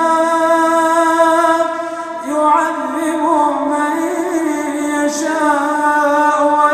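A man chanting the Quran in melodic tajweed recitation. He holds one long note, breaks briefly about two seconds in, then begins a new phrase with ornamented, wavering pitch.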